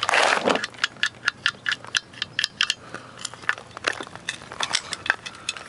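Irregular sharp metallic clicks and light knocks, several a second, from the loose metal parts of an old two-stroke bicycle engine kit being handled and turned over, with a brief rustle at the start.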